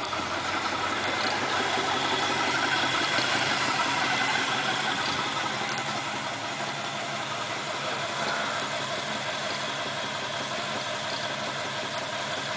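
Ford 351 Windsor V8 running at idle, with the engine knock the owner is asking about. The engine was just installed after sitting for seven years, and it has plenty of oil pressure and no loss of power.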